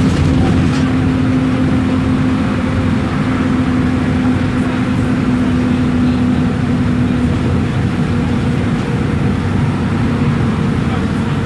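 Mercedes-Benz OF-1721 Euro V bus's four-cylinder diesel engine running steadily, with a steady tone over the engine noise that weakens about eight seconds in.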